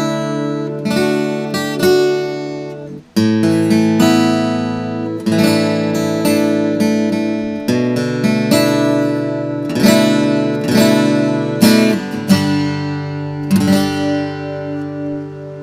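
Morris MG-1002 acoustic guitar playing chords, each struck and left to ring, with a short break about three seconds in.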